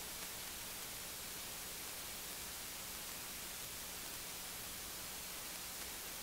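Steady electronic hiss with a faint low hum underneath: the recording's noise floor, with no other sound standing out.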